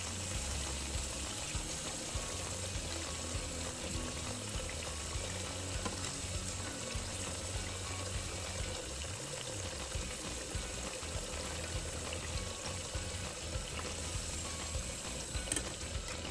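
Breaded potato slices frying in hot cooking oil in a pan: a steady sizzle scattered with small pops and crackles. Background music with a low bass line plays under it.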